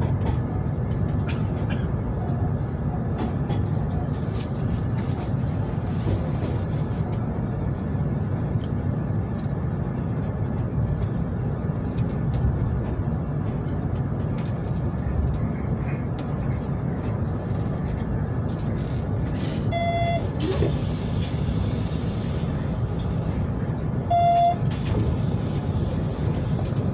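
Hanshin 9300 series electric train running, a steady low rumble of wheels on rails. Two short beeps come about 20 seconds in and again four seconds later.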